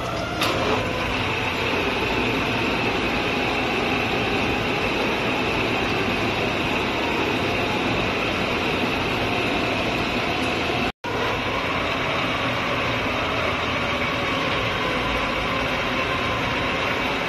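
Metal lathe with a four-jaw chuck starting up about half a second in, then running steadily with a high whine over the machine's drone. The sound cuts out for a split second about eleven seconds in.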